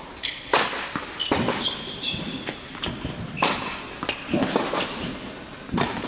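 Tennis rally on an indoor hard court: sharp pops of racket strings hitting the ball and the ball bouncing, about one every half-second to second, with short high squeaks of sneakers on the court surface, echoing in the hall.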